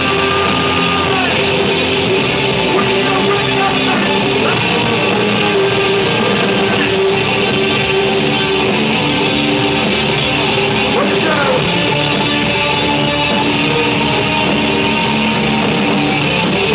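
Loud hard rock music with electric guitar, playing steadily.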